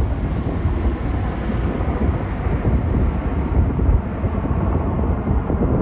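Jet airliner engines rumbling, a deep steady noise whose higher hiss slowly fades as the aircraft draws away.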